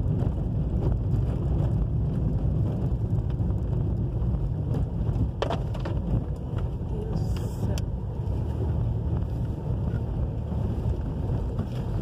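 A car driving on a gravel dirt road, heard from inside: a steady low rumble of engine and tyres on the loose surface, with two brief knocks midway.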